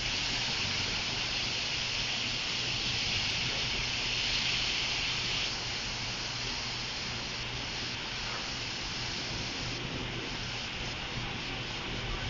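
A steady hiss, a little louder for the first five or so seconds and then slightly softer, over a faint low hum.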